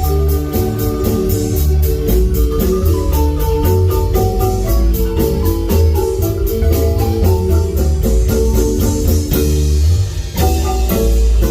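Marimba band playing: a marimba melody over a heavy bass line, with a steady beat of high percussion ticks about four a second.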